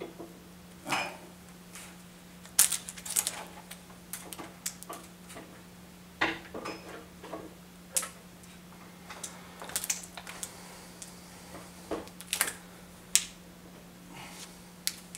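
Metal mounting brackets on the back of a TV clinking and knocking against a metal mobile TV stand as the TV is hooked onto it. Irregular short, sharp clicks and clinks, the loudest about two and a half seconds in.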